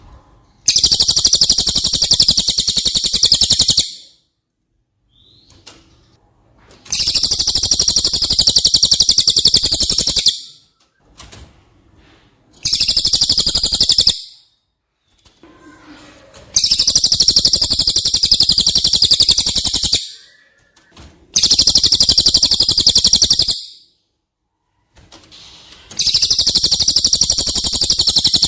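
Cililin bird singing: a loud, very high, fast buzzing trill delivered in six bursts of about two to three seconds each, with short pauses between them.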